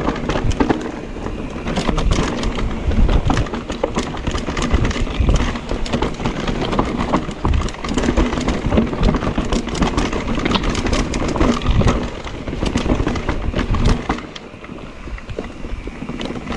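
Mondraker Crafty electric mountain bike ridden over a rough, rocky trail: tyres crunching over stones, with a dense, irregular rattle of the frame and chain over a low rumble. It quietens about fourteen seconds in.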